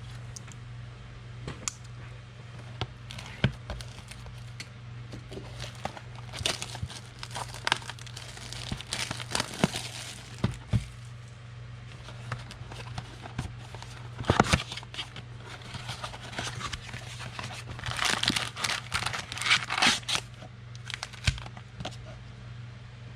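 Wrapping and card packs of a 2020 Score football box being torn open and crinkled, in scattered rustles and clicks that are busiest near the end, over a steady low electrical hum.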